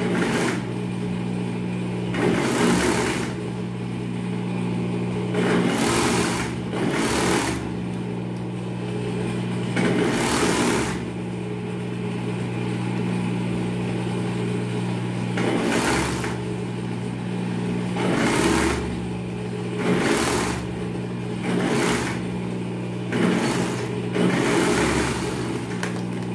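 Industrial overlock machine sewing a seam in a series of short stitching runs, each a whirring burst of about half a second to a second, over a steady motor hum that carries on between runs.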